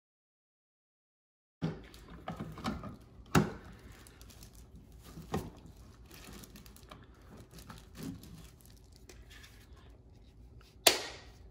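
Dead silence for about a second and a half, then hard plastic toy parts being handled: scattered clicks and knocks as the Power Morpher and its black plastic stand are picked up, set down and fitted together, with soft rustling in between.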